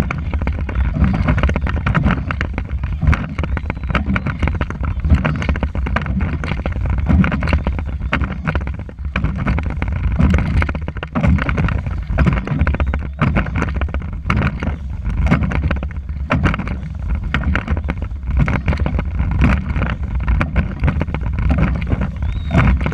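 Dragon boat under way, heard from an action camera on board: a steady rush of water with frequent short splashes and knocks, and a low rumble of wind buffeting the microphone.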